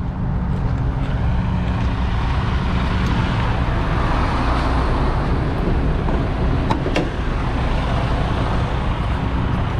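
Kenworth T680 semi truck's diesel engine idling steadily, with two sharp clicks about seven seconds in.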